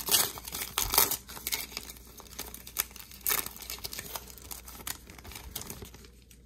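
A foil trading-card pack wrapper (2021 Donruss Optic baseball) being torn open and crinkled by hand. Sharp crackles come near the start, about a second in and again about three seconds in, then die down near the end as the cards come out.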